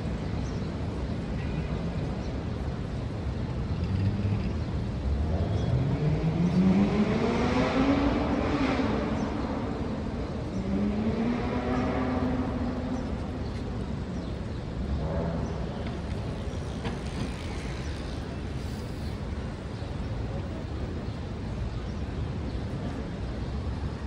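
City street traffic rumble. About five seconds in, a motor vehicle's engine climbs steadily in pitch as it pulls away and grows louder, eases off, then climbs a second time before fading back into the traffic.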